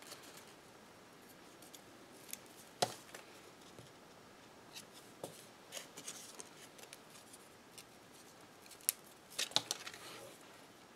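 Quiet handling of punched cardstock leaves and a roll of glue dots: soft paper rustles with scattered sharp taps and clicks, the sharpest about three seconds in and a cluster near the end.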